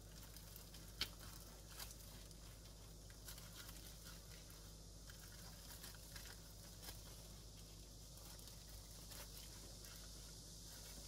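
Quiet food-handling sounds: faint rustles and soft taps of plastic-gloved hands laying vegetables on rice paper and rolling it on a cutting board, with one sharper tick about a second in, over a low steady hum.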